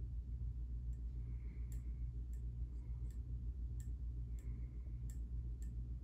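Casablanca Delta II ceiling fan running: a steady low motor hum that pulses slightly, with light ticks roughly every half second to a second.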